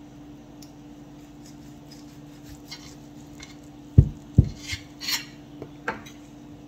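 Metal knife and fork scraping and clicking against a slate serving board while cutting through a bacon-wrapped meatball. Two dull knocks about four seconds in are the loudest sounds, followed by a few quick scrapes and clinks, over a faint steady hum.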